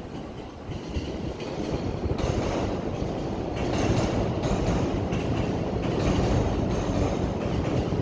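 An electric suburban train in JR East's orange-and-green Shonan livery runs past, growing louder from about two seconds in. Its wheels give repeated clacks over the rails as the cars go by.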